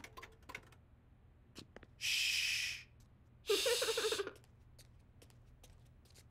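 Young children giggling behind their hands: a breathy, unvoiced snicker about two seconds in, then a short, choppy voiced giggle about a second later, with a few faint clicks at the very start.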